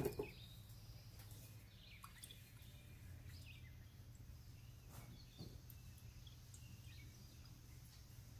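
Near silence: a faint steady low hum, with a few faint high chirps and a couple of soft clicks about five seconds in.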